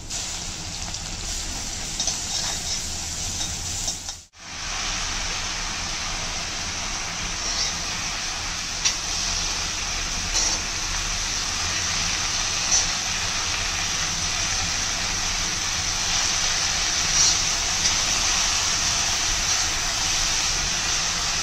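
Steady sizzling of chopped onion and amaranth leaves frying in hot oil in an iron kadai, with a few sharp clicks of the spatula against the pan as the leaves are stirred. The sound cuts out briefly about four seconds in, then carries on.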